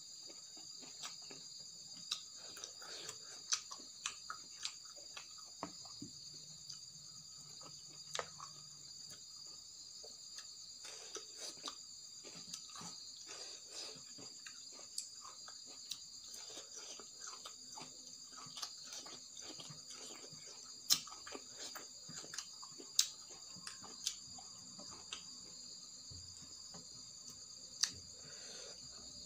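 Eating by hand from a steel plate: scattered short clicks and crunches of chewing fiddlehead ferns and rice and fingers gathering food on the plate. Behind them runs a steady high-pitched trill of crickets.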